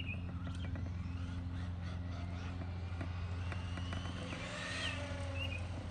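Traxxas Maxx Slash RC truck running at a distance, its electric motor whine rising about three and a half seconds in, over a steady low hum, with a few short bird chirps.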